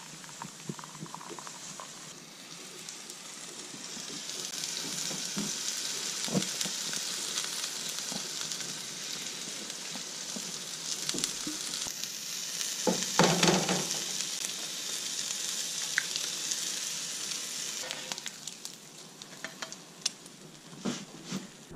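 Sausages and eggs sizzling in a frying pan: a steady hiss that builds a few seconds in and fades near the end. Clicks and scrapes of cooking utensils, with a sharper knock a little past the middle.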